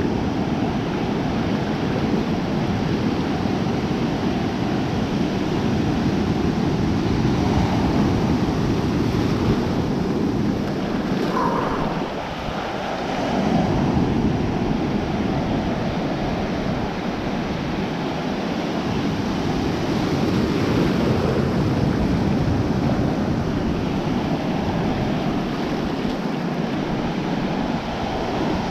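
Ocean surf washing and churning close around a GoPro's microphone, with wind buffeting the mic. The noise swells and eases like passing waves, dipping briefly about twelve seconds in before surging back.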